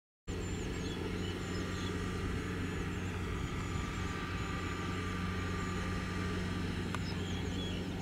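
Kubota DC70G combine harvester's diesel engine running steadily while cutting rice, heard from a distance as a low hum with a faint whine. Small birds chirp repeatedly over it.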